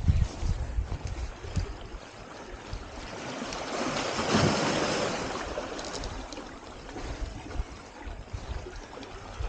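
Sea waves washing over shoreline rocks. One swell builds about three seconds in, splashes over the rocks at its loudest around four and a half seconds, then ebbs away.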